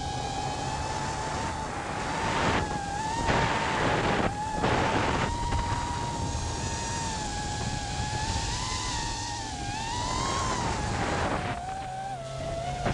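FPV racing drone's motors whining, the pitch wavering up and down with the throttle as it chases a rally car, over rushing wind and road noise that surges loudly a few seconds in.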